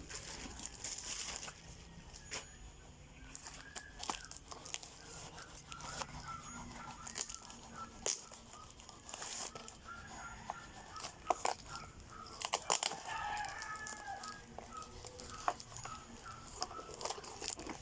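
Chickens clucking in short repeated notes in the background, over sharp crinkles and tearing of plastic packaging being handled and opened.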